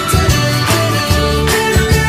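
Background music with a steady beat, a deep bass line and sustained melody notes.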